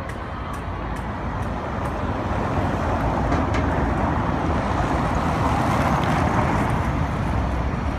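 Vintage electric tram rolling along its street rails toward the listener: a steady rumble of wheels and running gear that grows louder, peaking about six seconds in.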